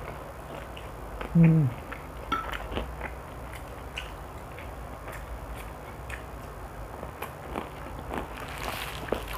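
A person eating crispy fried chicken close to a clip-on microphone: scattered wet chewing clicks, lip smacks and finger licking. About a second and a half in comes a short hum falling in pitch, the loudest sound.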